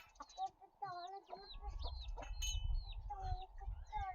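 Several chickens clucking and calling in many short, overlapping calls, with a low rumble underneath through the middle.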